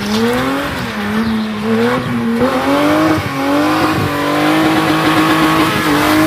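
Box-shape BMW E30 spinning doughnuts: the engine is held high in the revs, its pitch swinging up and down as the throttle is worked, over a steady screech of the spinning rear tyres.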